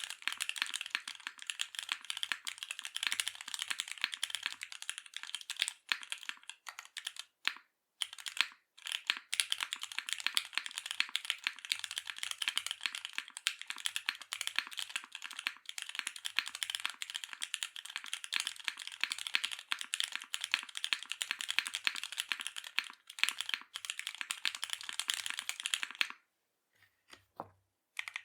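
Custom mechanical keyboard (Singa x TGR Unikorn R1: gasket-mounted aluminium plate, lubed Alpaca V2 linear switches, GMK keycaps) being typed on quickly and continuously, with a short pause about eight seconds in. Near the end the typing stops, with a few separate keystrokes after.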